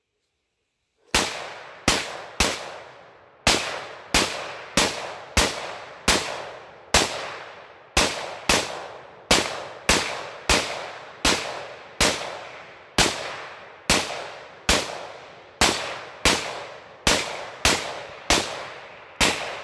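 AR-style semi-automatic rifle fired in rapid, steady succession: about thirty loud shots, roughly one to two a second, each trailing off in a short echo. The shooting starts about a second in.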